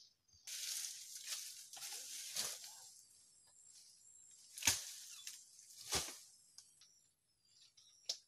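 Bamboo poles and dry leaf thatch rustling and knocking under a man climbing a bamboo roof frame: a rustle over the first few seconds, then two sharp knocks a little over a second apart.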